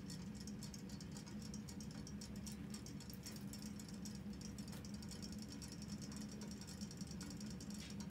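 Small battery-powered robotic toy fish swimming in a shallow glass dish of water, their motors giving a quiet rapid ticking over a low steady hum.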